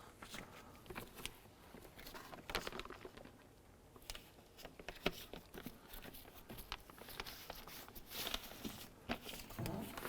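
Faint rustling and crinkling of a plastic door water shield being pressed back into place on the inner door panel, with scattered small taps and clicks and a louder rustle near the end.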